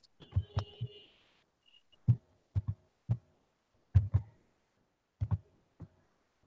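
Computer mouse clicks heard as short, muffled knocks through a video-call microphone, about nine of them, several in quick pairs, with a brief faint higher tone about half a second in.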